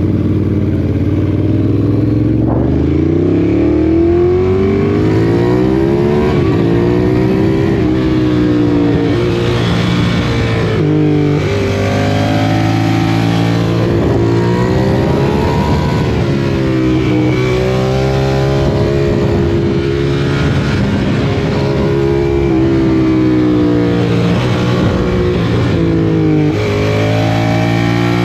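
Vehicle engine with a loud exhaust revved again and again, its pitch rising and falling every two to three seconds over a steady low rumble.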